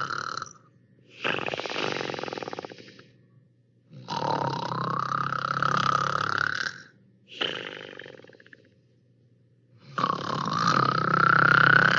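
Cartoon snoring sound effect in the Hanna-Barbera style, repeating in cycles. A rattly snore is followed by a longer breath with a rising tone, then a short breath, separated by silent pauses.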